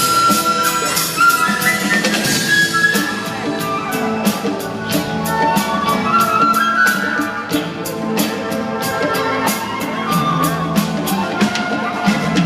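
Live rock band playing an instrumental passage between vocal lines, the drum kit keeping a steady beat under sustained melodic lines.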